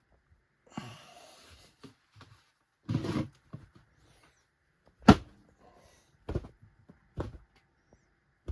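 Objects being handled and set down: scattered knocks and light rustling, with one sharp knock about five seconds in.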